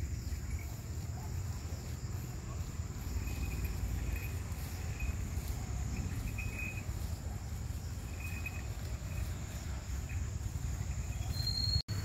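Outdoor ambience of insects: a steady high insect drone with a few faint short chirps, over a constant low rumble. The sound drops out for an instant near the end.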